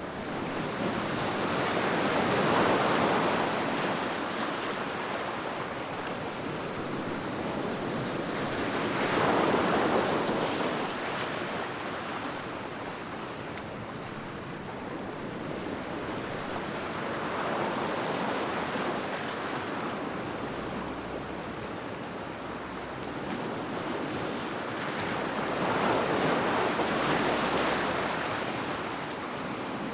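Sea waves washing in, each one swelling and fading, four times at intervals of about eight seconds.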